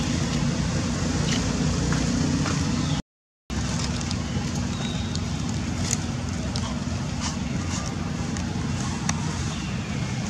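Steady low hum over a constant outdoor noise bed. It cuts out completely for about half a second about three seconds in, and a few faint clicks come later.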